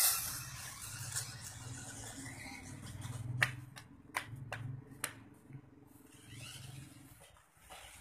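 Small electric motor and gears of a toy 4WD RC rock crawler running as it drives off across concrete, with a handful of sharp clicks and knocks a few seconds in.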